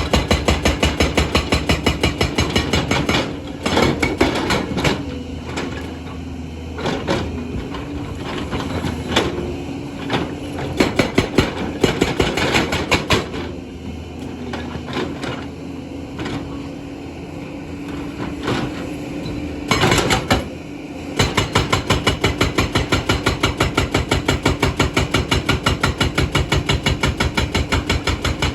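Excavator-mounted hydraulic rock breaker hammering stone in rapid, even blows over a steady engine. The blows stop after about three seconds and give way to scattered knocks with the engine running, then resume about two-thirds of the way through.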